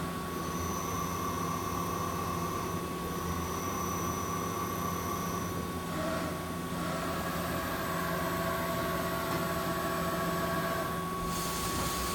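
Hartford Mighty Viper VMC-2100 vertical machining center running its CNC program, a steady machine hum with high electric whines from its drives. The whines change pitch about six seconds in and drop out near the end.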